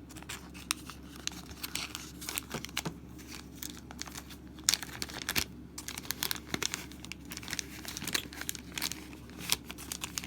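Plastic wrapping and cardboard game pieces crinkling and rustling as they are handled, with irregular small clicks and crackles.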